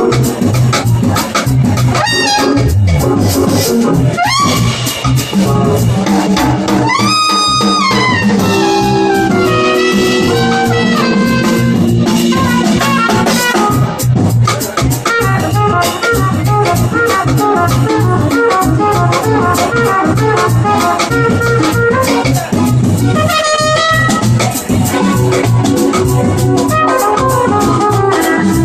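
Live jazz band with a trumpet playing the lead line over a drum kit keeping a steady beat, including a quick rising run about seven seconds in.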